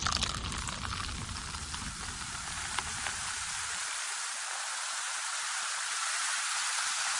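Steady rain-like hiss that starts suddenly after a short silence, with a low rumble beneath it that fades out about four seconds in.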